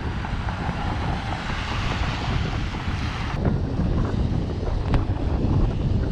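Wind rushing over the microphone on a moving motorcycle, with the bike's engine running underneath. About three and a half seconds in, the higher hiss drops away suddenly.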